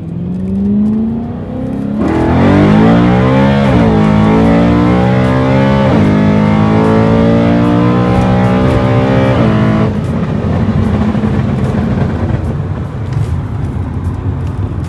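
BMW E92 M3's S65 V8 at full throttle, heard inside the cabin with the windows closed: revs climb, get louder about two seconds in, and drop sharply at each upshift before climbing again. About ten seconds in the throttle is lifted and the engine settles to a lower drone.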